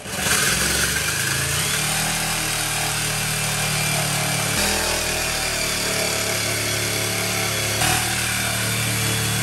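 Corded handheld power saw running steadily as it cuts into a thin wood cabinet panel, enlarging a hole; its note shifts a few times during the cut.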